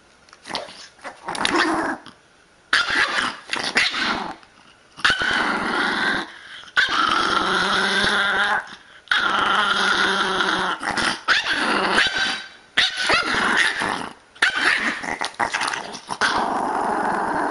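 Bulldog whining and grumbling in a run of long drawn-out calls, each lasting one to two seconds with short breaks between them. It is the complaint of a dog too scared to go down a flight of steps.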